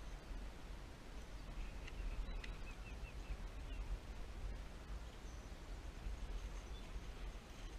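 A bird gives a quick series of about six short chirps about two seconds in, over a steady low rumble with a few faint knocks.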